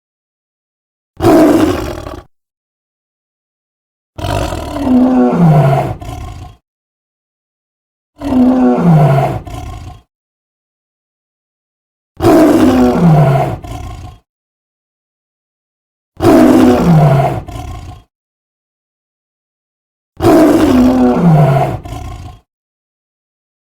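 Dragon roar sound effects for Dragreder and Dragblacker from Kamen Rider Dragon Knight, played one at a time: six roars about four seconds apart with dead silence between them, most ending in a low tone that falls in pitch.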